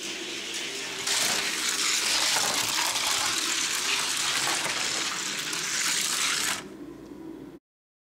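Two Hot Wheels die-cast stock cars rolling down a gravity race track: a steady rushing whir of small wheels on the track. It grows louder about a second in and drops back near the end before cutting off.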